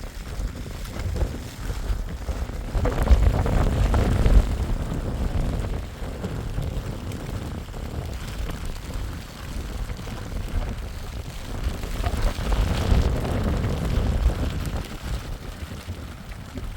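Strong storm wind gusting and buffeting the microphone as a deep, rumbling roar that swells twice, about three seconds in and again past the middle.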